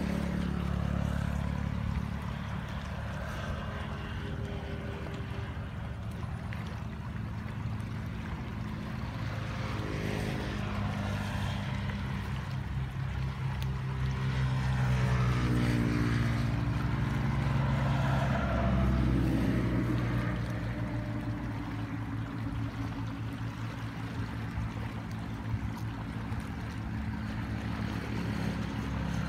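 Muddy floodwater rushing fast past the bank, with a steady low rumble. Through the middle a motor drones, its pitch gliding up and down and the sound swelling to its loudest about halfway through before fading.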